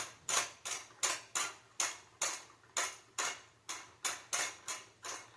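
Xbox Series S cooling fan running with a regular ticking, about two beats a second, each a short swish that dies away quickly. The owner puts this down to the fan having shifted out of place and needing replacing.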